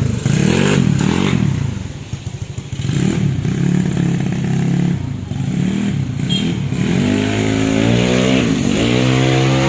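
Motorcycle engine revving up and down, then accelerating with its pitch climbing over the last few seconds, easing briefly and rising again.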